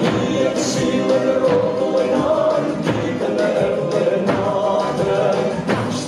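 Albanian folk song with singing, carried by strokes on large double-headed tupan drums beaten with sticks.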